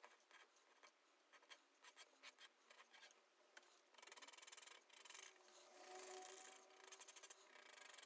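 Ballpoint pen drawing on paper, faint: short separate strokes at first, then from about halfway a quick run of back-and-forth scratching as cross-hatching is filled in.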